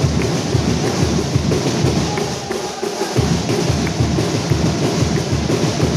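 Drumming with a fast, steady, heavy beat, easing briefly about halfway through.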